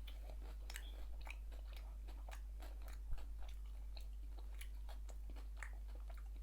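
Close-miked chewing of fried chicken wing dipped in coleslaw: many small wet crunches and clicks of mouth and food, with one louder soft knock about three seconds in.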